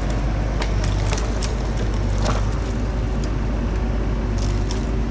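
Bobcat E42 mini excavator's diesel engine running steadily, with scattered sharp cracks and knocks over it.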